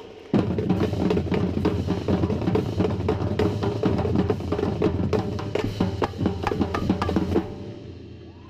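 Marching drumline playing a cadence, with the tenor drums (quads) struck close by over bass drums and snares in fast, dense patterns. It starts just after the opening and cuts off about seven and a half seconds in, the drums ringing away after.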